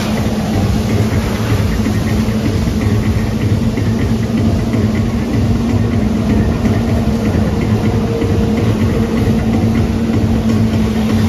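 Jet ski engine running steadily, driving water up a hose to a flyboard, heard as a constant steady hum over a wash of noise.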